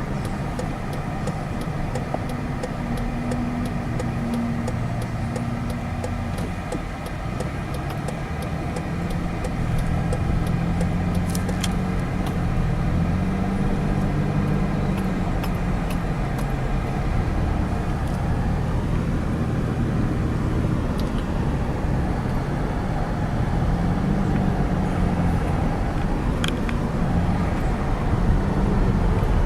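A car driving, with steady engine and road noise whose engine note rises and falls.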